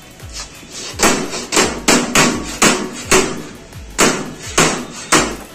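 Hammer blows on galvanized steel sheet as a desert-cooler body is formed and joined: a run of sharp metallic strikes, two or three a second, starting about a second in after a brief lull.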